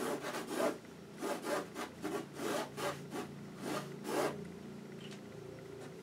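Felt-tip marker scratching across drawing paper in a quick series of short strokes, about two a second, stopping a little after four seconds in.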